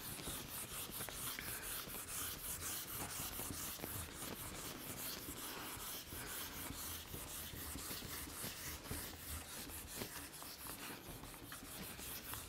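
Whiteboard eraser wiping marker off a whiteboard in quick back-and-forth rubbing strokes, about four a second.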